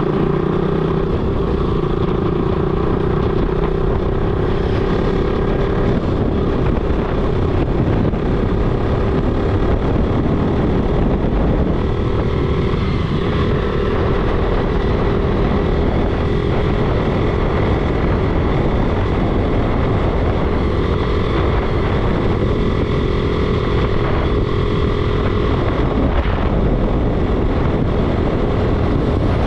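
Motorcycle engine running steadily while riding along a road, a constant engine note over dense low rumble and rushing noise.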